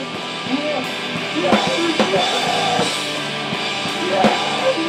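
A rock band's song playing: a drum kit with regular hits under a sung vocal line.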